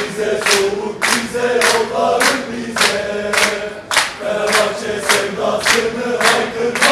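A crowd of Fenerbahçe football supporters chanting a song together in unison, with sharp clapped beats nearly twice a second.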